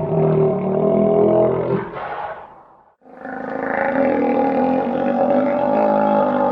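A drawn-out droning animal call with many overtones fades out about halfway through, and after a brief gap a similar long call starts.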